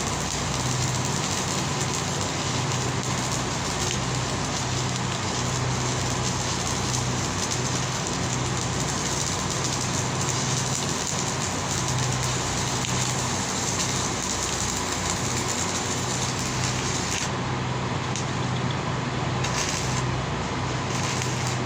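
A steady machine noise: an even rushing with a low hum under it, unchanging throughout.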